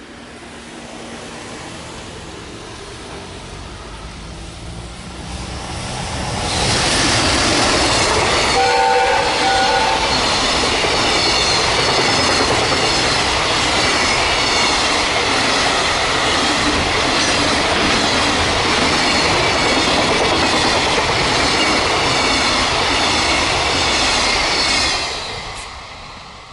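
JR Freight EF210 electric locomotive and its twelve-car Koki 104 container train approaching and passing: a rumble that grows for about six seconds, then loud steady wheel-and-rail noise from the wagons going by, dropping away near the end as the last wagon passes. Shortly after the locomotive goes by, its AW-2 whistle gives two short blasts, which the uploader takes for a warning to a small animal or a person on the track.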